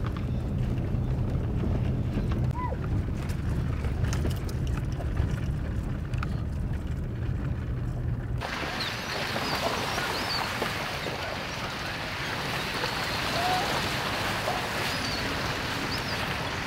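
A pickup truck's engine and road noise droning steadily, heard from inside the cab while driving. About halfway through it cuts to a steady rushing hiss with a few faint short chirps.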